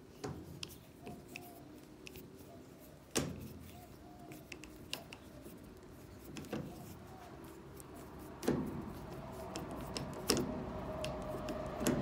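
Hand screwdriver driving screws into a washing machine's plastic control panel: scattered clicks and knocks of the tool against the plastic, the loudest about three seconds in and twice more near the end, with a rubbing noise building over the last few seconds.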